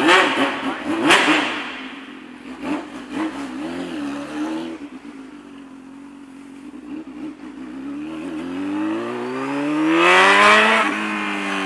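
Honda Hornet 600 inline-four motorcycle engine with a borozinho diffuser in its exhaust, blipped twice at the start and then revved in one long rising pull that peaks and drops off sharply near the end.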